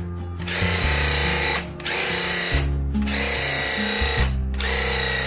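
Handheld electric paint sprayer buzzing as it sprays cabinet shelves, running in a few pulls with brief breaks between them, under background music.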